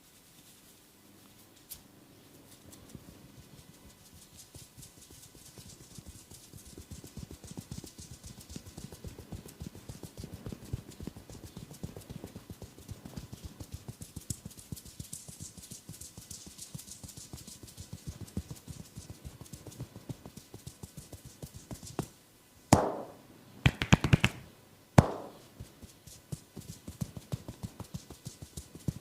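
Head massage: fast, rhythmic tapping on the head that starts faint and builds up steadily, with three louder, longer bursts about three-quarters of the way through.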